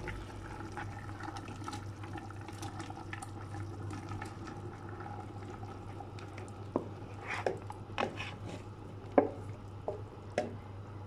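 Chunks of peeled taro sliding off a plate into a pot of chickpeas in water, with soft wet splashing. From about seven seconds in, a wooden spatula knocks and scrapes against the plate and pot rim in a handful of sharp clicks, over a steady low hum.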